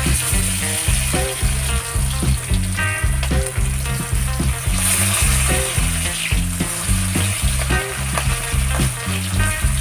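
Oil sizzling as fish fries, a steady hiss, over background music with a repeating bass line.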